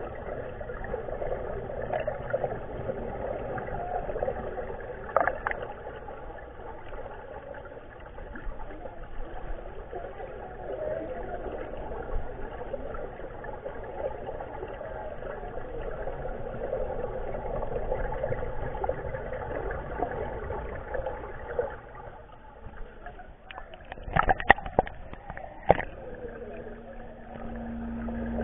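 Muffled underwater ambience heard through a camera's waterproof housing in a ray touch tank: a steady, murky wash of water noise. Near the end a short cluster of sharp knocks comes as a ray brushes against the camera.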